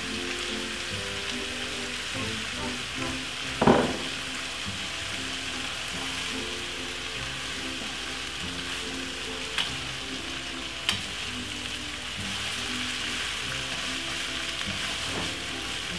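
Shredded cabbage, carrot and peppers sizzling steadily in hot vegetable oil in a frying pan as they are stirred. There are a few sharp knocks, the loudest about four seconds in.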